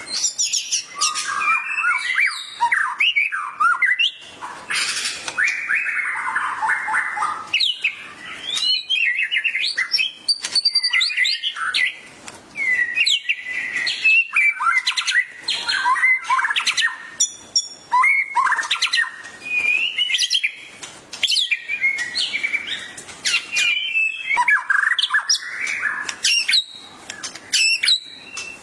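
Songbirds singing a fast, varied stream of whistles, chirps and trills with few pauses.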